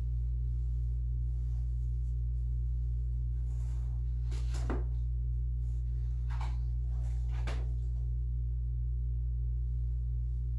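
Steady low hum, with three short clinks about four and a half, six and a half and seven and a half seconds in.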